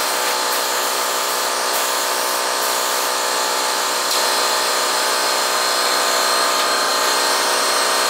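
A steady motor running without a break, a drone with a hiss over it.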